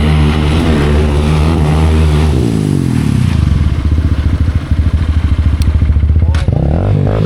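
Hero Xpulse single-cylinder motorcycle engine pulling at higher revs for the first couple of seconds, then dropping to a low, even, pulsing beat at low revs, with a short blip of the throttle near the end.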